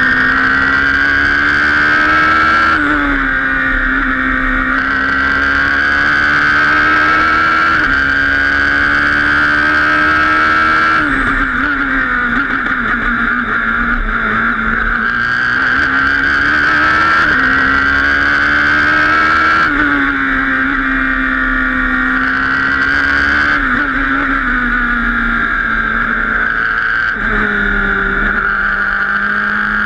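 Radical SR3 RS prototype racing car's engine heard from the cockpit on a flying lap, its note climbing under acceleration and dropping sharply at each gear change, several times over.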